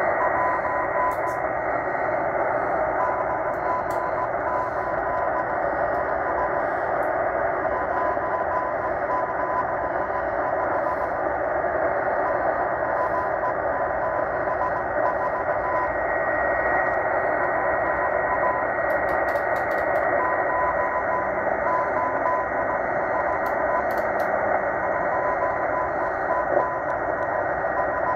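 Morse code from the M12 number station received on a shortwave radio in upper sideband: a keyed beat tone of about 1 kHz sending in runs with short pauses between them, over a steady layer of shortwave hiss and a faint steady whistle.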